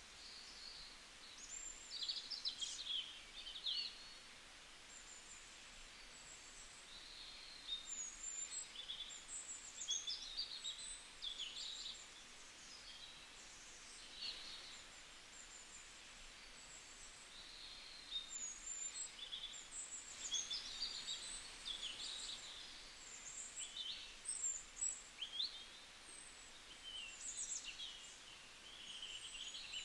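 Birds chirping, in scattered runs of quick high twitters that come and go every few seconds, over a faint steady hiss.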